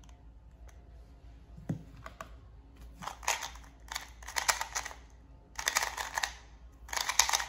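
Qiyi MS 2x2 speed cube being turned rapidly during a solve: runs of quick plastic clicking and clacking in four bursts over the second half, after a single light knock about two seconds in.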